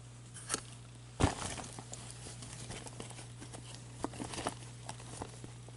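A gloved hand rummaging in a black cloth bag: fabric rustling with many small clicks, and a sharp knock about a second in. A steady low hum runs underneath.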